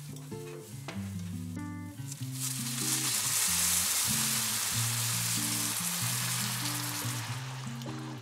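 Food frying in a hot pan: a loud sizzle that swells about two seconds in and eases off near the end, over soft background music.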